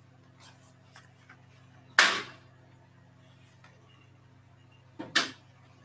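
Paper being handled: a short rustle about two seconds in and a double rustle near the end, over a faint steady low hum.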